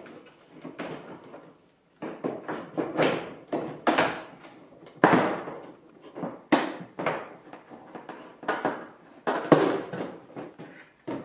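Irregular knocks, clicks and scrapes of an Audi S3 8L's plastic front bumper and grille being handled and pressed into place by hand, with a short pause about two seconds in.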